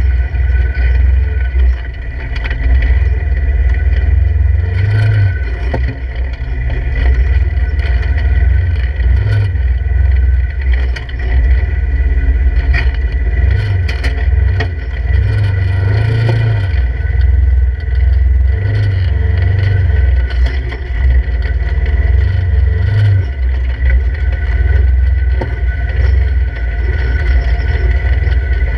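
Polaris RZR 1000 side-by-side's 999 cc parallel-twin engine and drivetrain heard from inside the open cab while crawling slowly over rocks. The low engine rumble swells and eases every second or two with short pulls on the throttle, with a few small knocks from the rocky ground.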